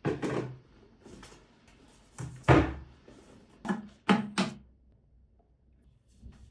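A series of separate knocks and thuds. The loudest comes about two and a half seconds in, followed by three quick ones around four seconds in.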